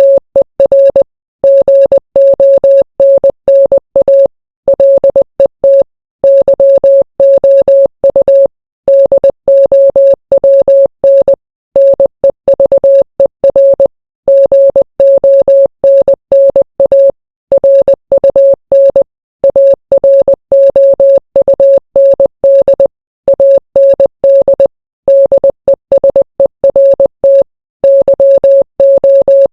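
Morse code sent as a single steady electronic beep, keyed on and off quickly in short dots and longer dashes, with brief pauses between letters and words.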